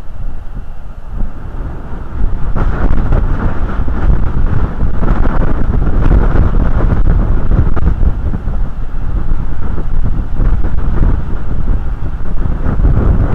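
Wind buffeting the nest camera's outdoor microphone: a loud, gusty noise with no bird calls, picking up sharply about two and a half seconds in and staying strong.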